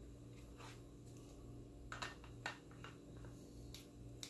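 A few faint clicks and taps from a compressed-air paintball tank being handled, over a steady low background hum.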